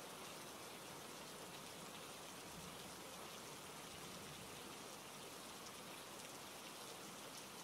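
Steady rain falling, an even hiss of many drops with no let-up, added as a rain-sound track.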